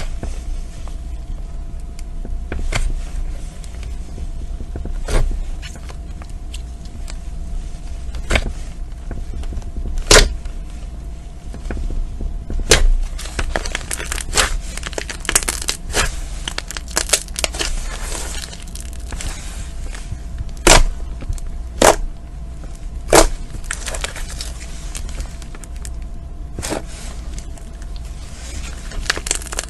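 Slime being squeezed and pulled by hand, giving irregular sharp sticky pops and clicks with crackly stretches in between, over a faint steady hum.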